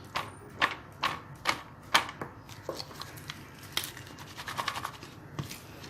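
Blanched potato sticks being tossed in a bowl with flour and cornflour to coat them: irregular clicks and scrapes, about two a second at first, then quicker, lighter ticks.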